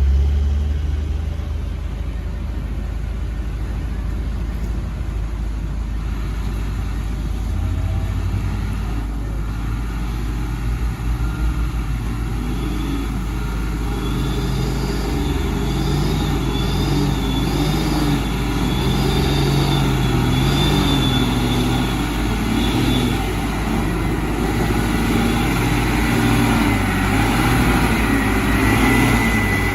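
Heavy diesel engine of a loaded coal dump truck running and working through mud, its pitch rising and falling as the driver works the throttle. A thin high squeal comes and goes through the middle of the stretch.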